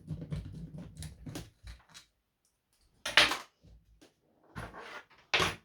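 Clicks, rattles and knocks of parts being handled as the 3.3 nitro engine is taken off the RC truck's chassis, with two sharper knocks, about three seconds in and near the end.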